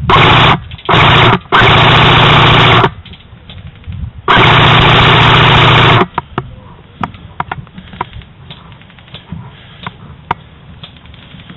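Airsoft rifle firing four full-auto bursts over the first six seconds, very loud and close to the microphone; the last and longest lasts almost two seconds. After that only scattered light ticks and clicks.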